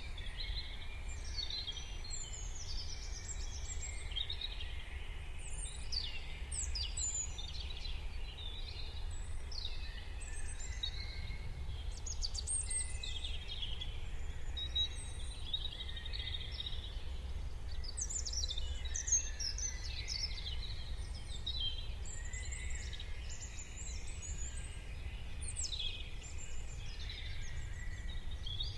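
Many songbirds singing and calling at once in a morning chorus, short chirps and trills overlapping without a break, over a steady low rumble.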